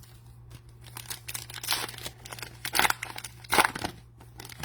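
Cellophane wrapper of a trading-card cello pack being torn open and crinkled: a run of crackling rips over about three seconds, the loudest two near the end.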